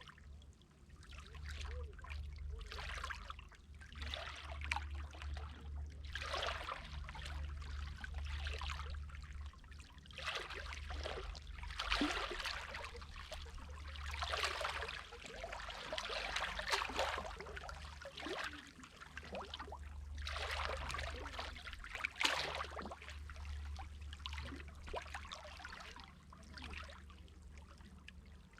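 Sea water lapping and splashing in short, uneven surges, one every second or two, over a steady low rumble.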